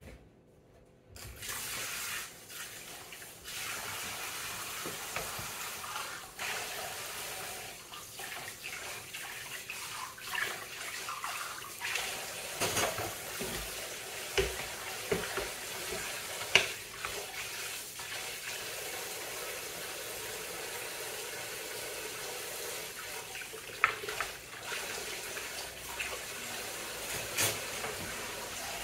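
Dishes being washed in a stainless steel kitchen sink: water splashing and running from the tap, with sponge scrubbing and now and then a sharp knock of the frying pan or plastic bowl against the sink. It starts after about a second of quiet.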